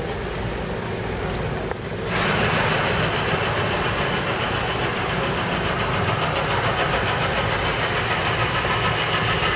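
Track-reconstruction machinery at the streetcar work site starts up suddenly about two seconds in. It runs on as a loud, harsh, rapidly rattling mechanical noise over a low engine rumble.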